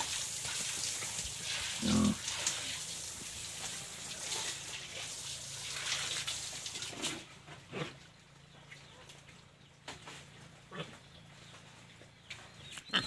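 Water from a hose spraying and splashing on a wet pig-pen floor, stopping about seven seconds in; a pig grunts once, loudly, about two seconds in, and a few faint knocks follow.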